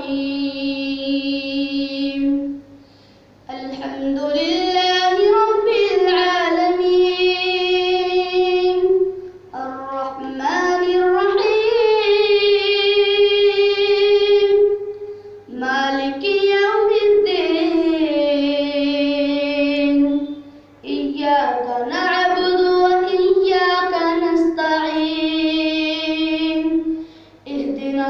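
A boy singing a naat, an Urdu devotional poem, solo and unaccompanied, in long held phrases with wavering notes, pausing briefly for breath about every five to six seconds. A faint steady hum runs underneath.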